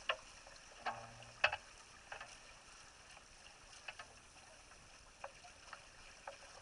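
Water hissing along a Laser 4000 sailing dinghy's hull as it moves under sail, with about six short, sharp slaps and knocks scattered over the steady hiss, the loudest about a second and a half in.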